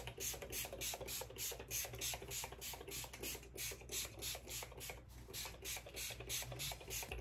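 Finger-pump mist bottle of makeup setting spray being pumped at the face in quick repeated sprays: a steady run of short hisses, about four a second.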